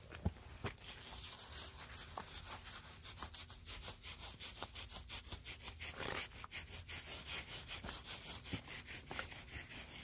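Curry comb scrubbing a horse's fuzzy winter coat in quick, regular strokes, about five a second.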